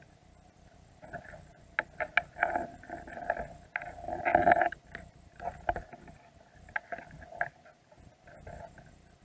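Irregular clicking and scraping, heard underwater, as Dungeness crabs clamber over each other and the bait container. It is loudest about four and a half seconds in and thins out near the end.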